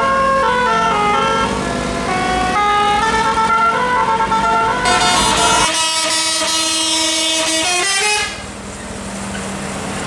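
Bus telolet horn, a multi-tone musical air horn, playing a quick tune of stepping notes that ends in a long held chord and cuts off about eight seconds in. Engine and road noise carry on after it.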